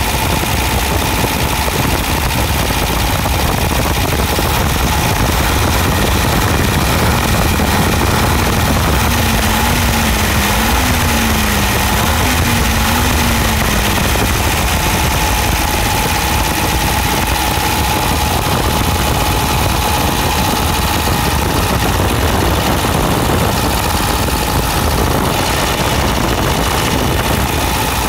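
Car engine idling steadily, heard up close beside its mechanical fuel pump.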